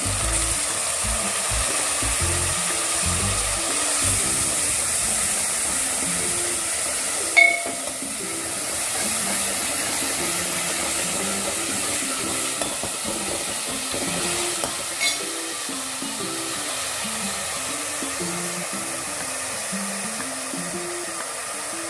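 Chopped tomatoes sizzling in hot oil in a metal pan, with a steady hiss, while a steel ladle stirs them; the ladle clinks against the pan about seven seconds in and again near fifteen seconds.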